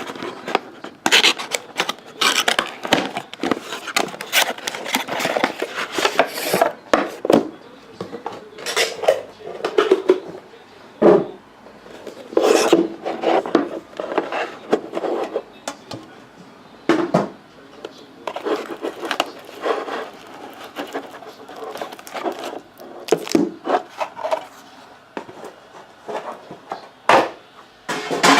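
A trading-card tin and its packaging being handled and opened: irregular scraping and rubbing with sharp clicks and metallic clinks.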